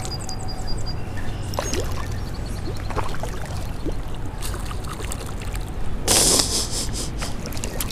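River current running steadily, with a short splash about six seconds in as a hooked smallmouth bass thrashes at the surface.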